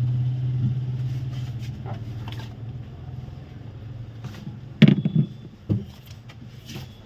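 Hot-air rework station's blower humming steadily, fading slowly over the first few seconds, as it is brought up to heat a phone's charging socket for desoldering. A few sharp clicks of tools being handled come about five seconds in.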